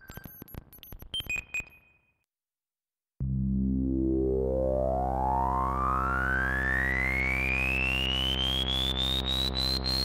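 u-he Bazille software synthesizer playing its 'LP Rise' patch: a sustained low buzzy synth tone whose resonant low-pass filter sweeps steadily upward for about seven seconds, with a ticking on top that speeds up toward the end. Before it, short scattered electronic blips and clicks fade out, then a second of silence.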